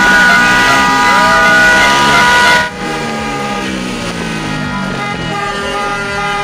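Several horns sounding together in long, steady blasts over a loud, noisy din. The din drops off abruptly about two and a half seconds in, while the horns carry on.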